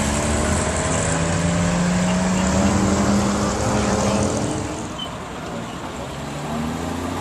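A sports car's engine accelerating, its pitch rising slowly. It fades about four and a half seconds in, and a fresh rise in engine pitch starts near the end.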